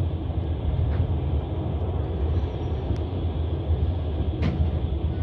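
Passenger train running along the rails, heard from inside the carriage: a steady low rumble of wheels and running gear, with one sharp click about four and a half seconds in.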